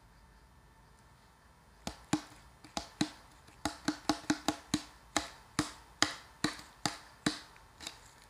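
Gloved fingers tapping on a white paper ice cream cup, a quick run of about seventeen sharp, hollow taps, roughly three a second and unevenly spaced, starting about two seconds in.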